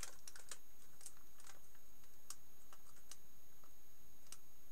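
Scattered light clicks and taps from a milling machine's rubber drive belts and pulleys being handled as the belts are moved to a new speed position, most of them in the first second and a half.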